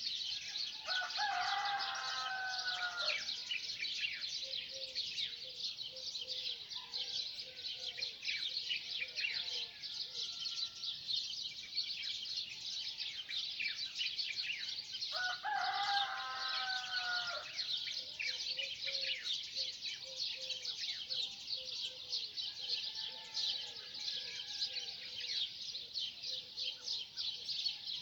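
A dense chorus of small birds chirping, with a rooster crowing twice, about a second in and again around the middle, and short low clucks between the crows.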